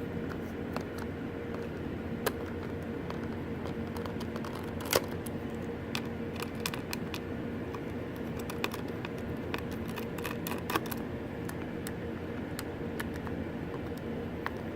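Scattered light clicks and ticks of a small Y0 tri-wing screwdriver working screws out of a MacBook battery, the sharpest click about five seconds in, over a steady background hum.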